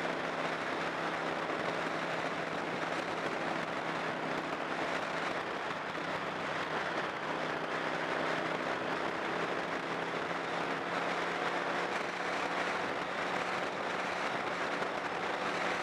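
A car driving at steady speed: a constant hiss of tyre and wind noise over a steady engine hum, whose pitch shifts slightly about halfway through.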